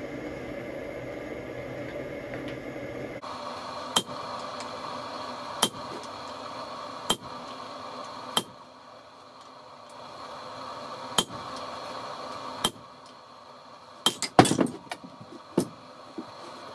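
Separate hand-hammer blows on a handled hot punch held on red-hot steel on an anvil, about one every one and a half seconds, each with a short metallic ring. Near the end comes a louder clatter of steel tools laid down on the anvil.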